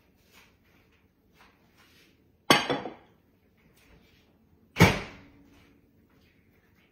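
Kitchen clatter from things being handled and moved: light clicks and knocks, with two loud sharp bangs a little over two seconds apart, the second with a brief ring after it.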